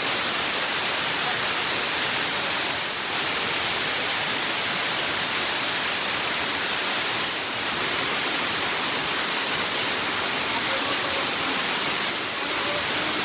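Waterfall water rushing, a loud steady hiss, with brief slight dips in level three times.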